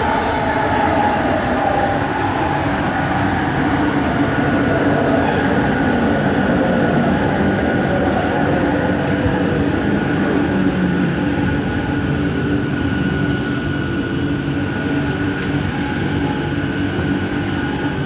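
Bombardier Innovia ART 200 train running, heard from inside the car: the whine of its traction motor drive glides down in pitch over the first several seconds, then holds as a steady hum and whine over the rumble of the ride. This is the unusual motor noise singled out on this trainset.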